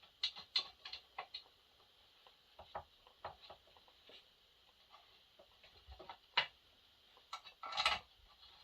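Faint, irregular light clicks and taps of chainsaw parts being handled and fitted together on a bench, with a sharper knock about six and a half seconds in.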